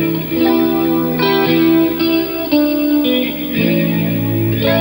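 Rock band playing an instrumental passage: electric guitars hold chords over bass, the notes changing every half second or so.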